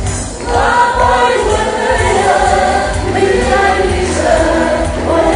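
A group of voices singing a Portuguese marcha popular over music with a steady beat.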